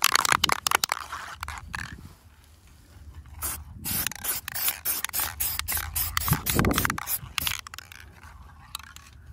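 Aerosol can of Rust-Oleum high-heat spray paint. Its mixing ball rattles rapidly as the can is shaken for the first second or two. After a short pause come a series of short hissing sprays of paint onto a metal heat shield.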